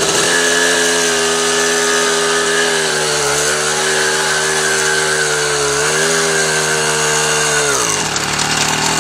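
Riga-13 moped's small two-stroke engine running steadily under way. It dips slightly about three seconds in and picks up again around six seconds, then drops in pitch and winds down near the end as the throttle closes.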